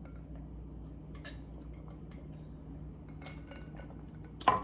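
Light clicks and clinks of things handled at a table during a meal, with one sharper knock near the end, over a faint steady hum.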